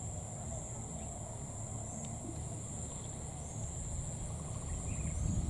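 Steady high-pitched insect chorus trilling without a break, with a low rumble underneath that grows louder near the end.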